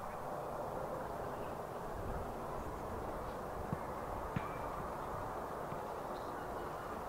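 Dornier 228-212's twin turboprop engines running steadily, heard as an even rumbling hiss, with a faint click about four seconds in.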